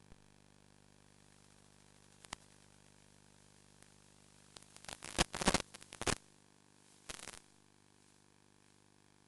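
Faint, steady electrical hum on an FPV quadcopter's onboard audio feed. About four and a half seconds in, loud crackling bursts break in for over a second, and they come back briefly about seven seconds in.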